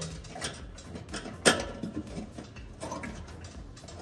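Light metallic clicks and taps as a gas oven thermostat's capillary tube and sensing bulb are handled and pushed into place against the oven's sheet-metal back wall, with one sharper knock about a second and a half in.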